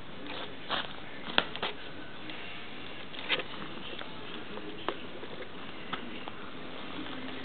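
Soft rustles and small sharp clicks of a cat shifting on bedding right against the microphone, over a steady hiss, with the sharpest click about one and a half seconds in.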